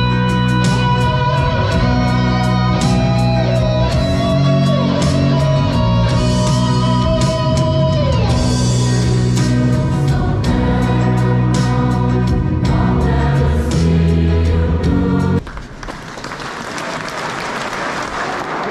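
A student choir sings the college anthem to electronic keyboard accompaniment. The music stops abruptly about fifteen seconds in, and applause follows.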